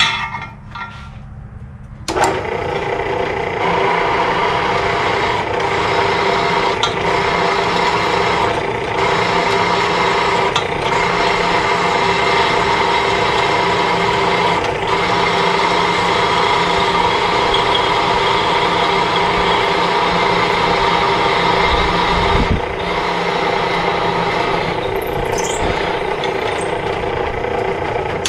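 Dunlap 103 drill press running under its electric motor and belt-and-pulley drive. It starts abruptly about two seconds in and runs steadily, with a short low rumble near the end.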